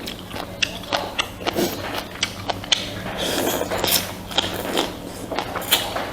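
Close-up eating sounds of a person eating rice and pork soup: a string of sharp mouth clicks and smacks, with a denser noisy stretch about three seconds in. A steady low hum runs underneath.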